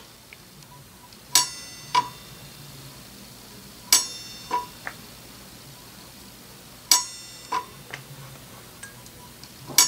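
Saw-blade teeth clicking against the spring-loaded indexing pin of a homemade lathe dividing device as the chuck is stepped round a tooth at a time: four sharp, ringing metallic clicks about every three seconds, the first three each followed about half a second later by a lighter click.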